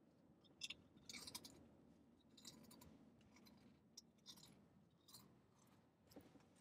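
Near silence, broken by a few faint, scattered clicks and rustles.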